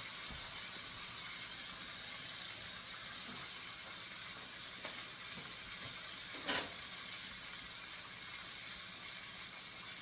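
Hot frying oil in a pot sizzling steadily, with a brief louder sound about six and a half seconds in.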